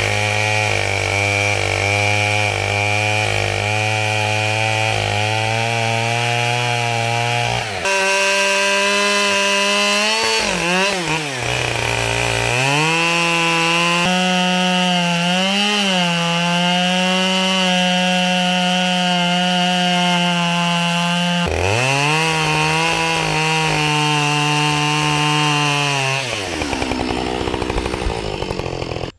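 Husqvarna 572XP two-stroke chainsaw with Oregon RD ripping chain running at full throttle, ripping lengthwise through a white pine beam. The engine pitch sags and recovers under load about a third of the way in and again briefly later. Near the end it drops back toward idle.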